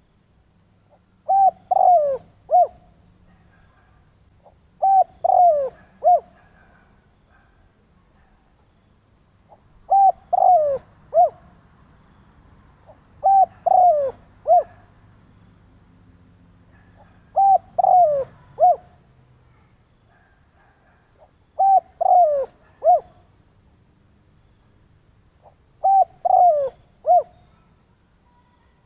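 Spotted dove cooing: seven three-note phrases, each a little over a second long, repeated about every four seconds.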